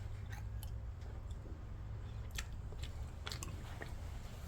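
A person chewing a mouthful of cooked carp close to the microphone: soft wet mouth clicks, several of them between about two and four seconds in, over a steady low hum.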